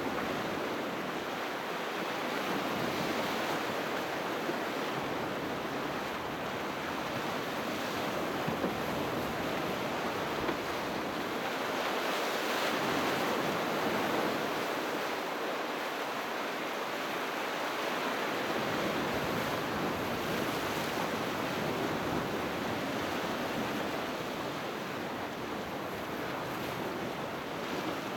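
Sea waves breaking on the shore: a continuous rush of surf that swells a little about halfway through.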